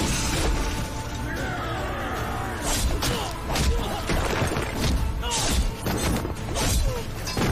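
Action-film fight soundtrack: dramatic music punctuated by about half a dozen sharp crashes and smashing impacts.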